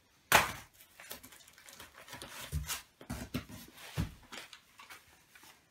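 Bubble wrap and cardboard rustling and crinkling as packs are lifted out of a cardboard shipping box. It opens with one sharp, loud crackle, then goes on as softer irregular rustles with a few light knocks.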